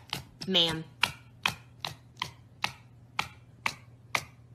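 Red fox making a rhythmic chatter of short, sharp clicking sounds, about two and a half a second.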